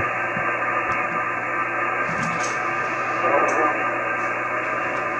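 Icom IC-9700 receiving a linear satellite's 2-metre downlink in upper sideband: steady receiver hiss with no high end, and a faint garbled snatch of sideband signal about three and a half seconds in.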